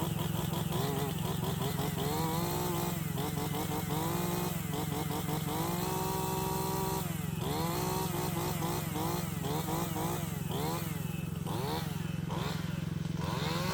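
AGT LH12R mini excavator running steadily, with a pitched whine that rises and falls over and over, many times, as the hydraulic controls are worked.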